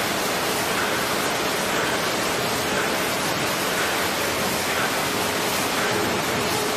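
Toilet roll and kitchen towel packing machine running: a steady, loud mechanical noise with a faint repeated pulse about once a second.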